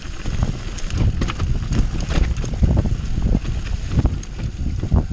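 Mountain bike descending a rough dirt and stone trail: a steady low rumble of tyres and wind buffeting the rider's microphone, broken by frequent knocks and rattles from the bike over bumps.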